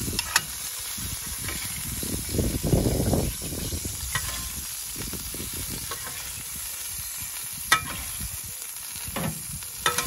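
Whole red mullet sizzling steadily in hot oil in a pan inside a charcoal-fired oven while a spoon bastes them. There is a brief low rumble about three seconds in, and a few sharp clinks of the spoon against the pan.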